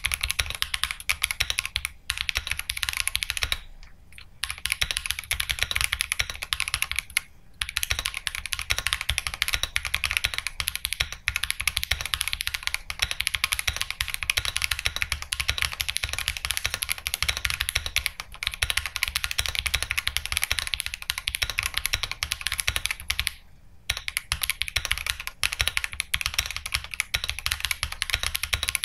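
Akko Mod005 gasket-mount 65% mechanical keyboard, fitted with tall ASA-profile keycaps, being typed on fast in a continuous run of keystroke clacks. There are brief pauses about four, seven and twenty-four seconds in.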